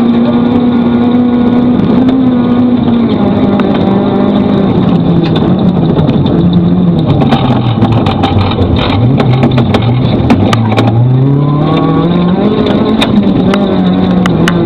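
Rally car engine running hard on a loose gravel stage. Its note holds for a few seconds, sinks steadily to its lowest point about eight to ten seconds in, then climbs again, with sharp ticks scattered throughout.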